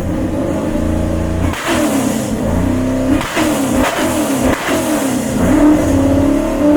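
Supercharged 408 cubic-inch LS stroker V8 in a Nissan 240 being revved, loud: held high at first, then several rev blips, the pitch rising and falling, each cut off sharply as the throttle shuts.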